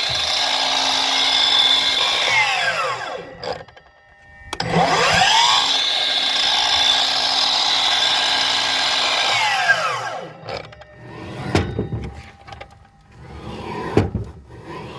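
Milwaukee 12-inch cordless miter saw motor running twice. It winds down about three seconds in, then spins up again, runs steadily for about five seconds and coasts down. A few clunks follow near the end.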